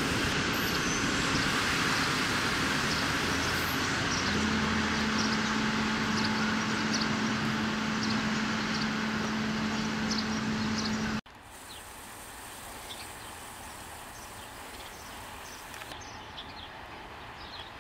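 Passenger train of coaches pulling out of a station: a loud steady rolling rumble, with a steady low hum joining about four seconds in. An abrupt cut about eleven seconds in drops it to a quieter steady rumble as a red electric locomotive hauling a train approaches. Short high chirps run throughout.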